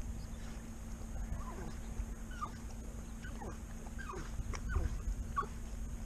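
Hunting dog whining and whimpering in many short, high cries that slide in pitch.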